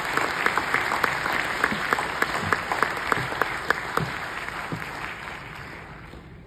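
Audience applauding, with loud single claps close by standing out from the crowd's clapping; the applause fades away over the last two seconds or so.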